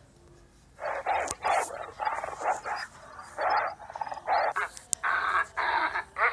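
Dog barking, a quick run of short barks and yips starting about a second in.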